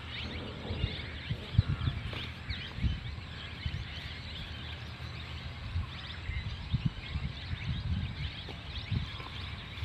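Outdoor ambience of many small birds chirping, with irregular low rumbles underneath.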